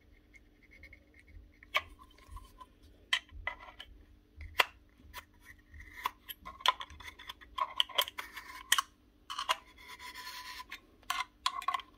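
Screwdriver tip scraping and clicking against the impeller inside a cordless vacuum's sealed DC motor-fan unit as the fan is prodded round by hand: irregular scrapes and ticks, some with a light metallic ring. The fan is very tight, which points to a seized fan or motor bearing.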